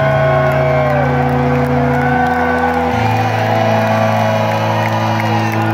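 Live rock band playing a concert: held low bass and synth notes that shift about three seconds in, with audience whoops and cheers.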